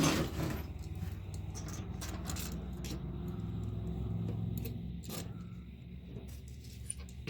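Metal lathe running with a steady hum, with a few sharp metallic clicks and knocks from handling; the loudest knocks fall at the very start and the very end.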